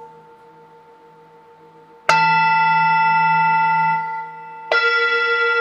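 Metal singing bowls struck twice with a padded mallet, about two seconds in and again near the end, each strike ringing on in several steady overtones. A fading hum from an earlier strike is heard at the start.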